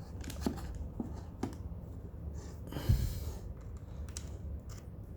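A USB-C charging cable being handled and plugged in: a few light clicks, then a brief rustle with a knock about three seconds in, over a low steady hum.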